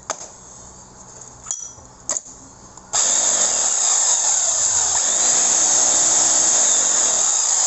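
Dongcheng electric demolition hammer switched on about three seconds in, after a few handling clicks, and running with a loud, steady motor whine and no hammer blows. The hammer does not strike because a worn O-ring leaks the air pressure that drives the striker.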